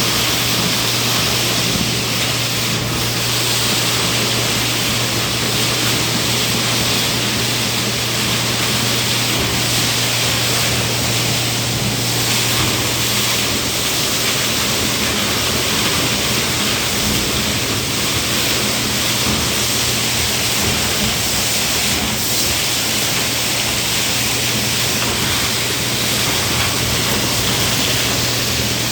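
A large vacuum machine running steadily: a loud, even rush of air over a constant low motor hum.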